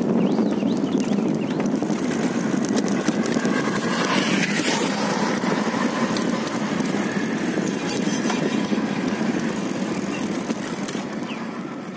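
Steady rushing wind and road noise of riding along a road, fading out near the end.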